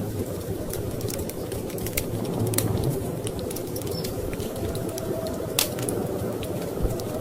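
Wood fire crackling, with irregular small pops and one louder pop about five and a half seconds in, over a steady low rumble of storm wind.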